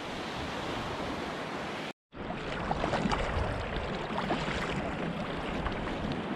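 Small waves washing onto a sandy beach. After a cut about two seconds in, the sound of sea kayaks on the water: paddle blades dipping and splashing, and water lapping at the hulls.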